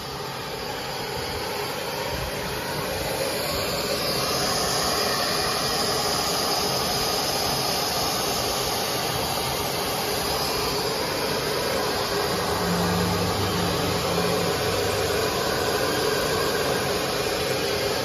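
Steady running noise of an EVA spiral corrugated hose extrusion line in operation: electric motors and the extruder turning with an even whirr. It grows a little louder over the first few seconds, and a short low hum joins about thirteen seconds in.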